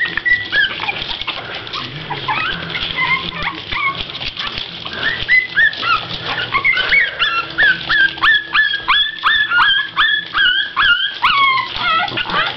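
Month-old Boston Terrier puppies whimpering and yipping in short, high-pitched squeaks, with a quick run of about three yips a second in the second half.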